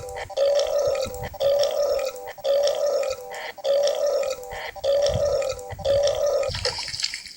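Cartoon character belching over and over in a steady rhythm, about one belch a second, roughly seven times.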